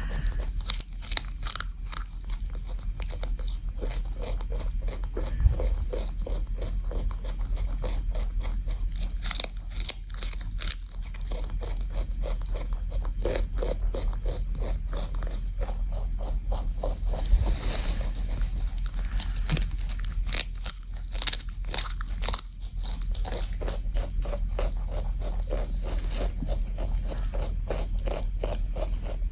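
Rabbit chewing celery: a fast, even run of crunching bites, several a second, with louder bursts of crunching every so often.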